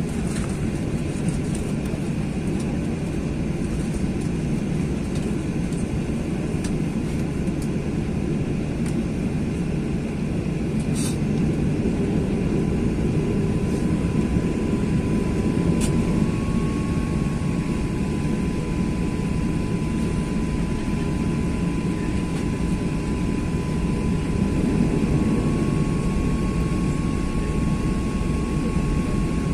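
Cabin noise inside a Boeing 737-800 taxiing: the CFM56-7B engines' steady low rumble, with a faint thin whine that comes in partway through and steps up slightly in pitch twice.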